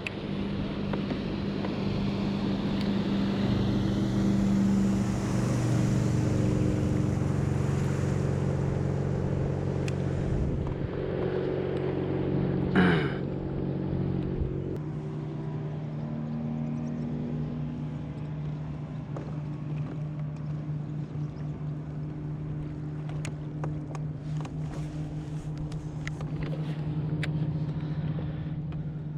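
Motorboat engine droning steadily as a boat passes, its pitch shifting a few times, with a brief sharp sound about halfway through.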